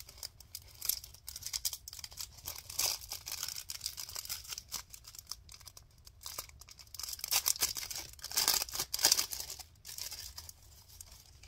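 Clear plastic sleeve crinkling and rustling as it is handled and pulled open, in irregular crackles, louder for a couple of seconds about two-thirds of the way through.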